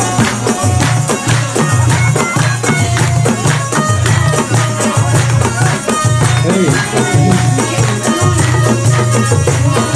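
Background music with a steady beat and a strong, pulsing bass line.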